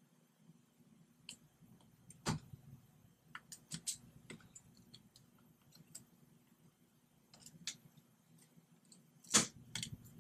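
Sparse small clicks and scratches of a thin hand tool picking at very hard glue on a MacBook Pro logic board, with a sharper click about two seconds in, a little cluster around four seconds and the loudest near the end.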